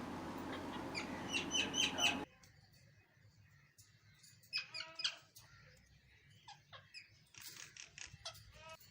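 Birds chirping and calling: quick high chirps over a steady hiss, then, after an abrupt cut about two seconds in, scattered chirps and a louder, harsher call against a quieter background.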